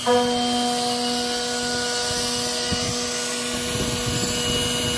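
Mini CNC router spindle milling a slot in 16 mm 5083 aluminium alloy plate with an 8 mm two-flute end mill at 7,000 rpm, taking 1 mm per pass. It makes a steady pitched whine with a high thin tone above it, over the rough noise of the cut.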